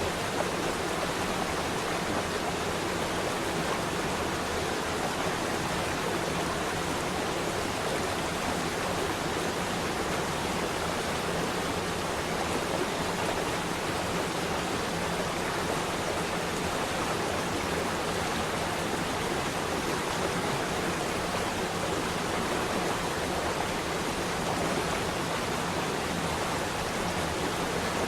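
Flowing water running steadily with an even, unbroken rush.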